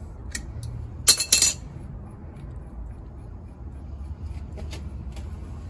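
Adjustable spanner clinking against the steel seal-pressing tool bolted to a Unimog front hub: a quick cluster of sharp metallic clinks about a second in, then a few faint ticks, over a steady low hum.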